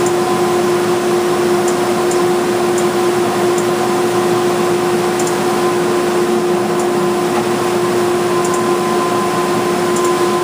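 Wide belt sander running steadily: a continuous machine drone with a strong steady hum, and a few faint high ticks scattered through it.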